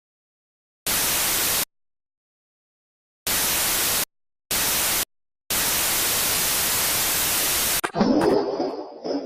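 Bursts of harsh white-noise static cutting in and out abruptly, with dead silence between them: four bursts, the last about two seconds long. Near the end the static gives way to a different, louder sound that flickers and fades.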